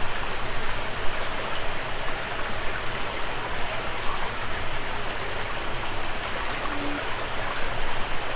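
Creek water running steadily over rocks, an even rushing and trickling.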